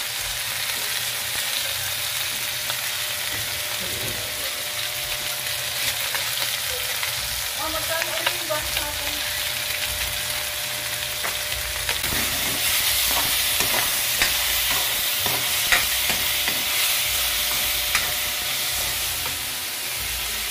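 Oil sizzling in a wok as flaked fried fish is sautéed with garlic, onion and tomato, with short scrapes and clinks of stirring against the pan. The sizzle grows louder about twelve seconds in.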